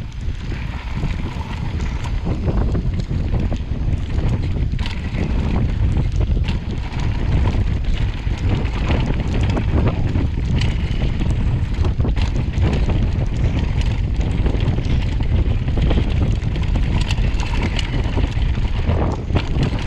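Wind buffeting the microphone at riding speed on a downhill mountain bike, a steady low rumble, with frequent short rattles and knocks from the bike and its tyres over the bumpy dirt trail.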